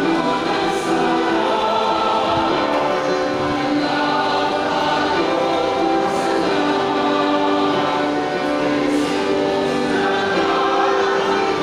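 Choir singing a hymn, with long held notes.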